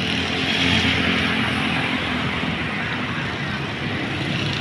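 Steady road traffic noise, with engines and tyres rising slightly about a second in.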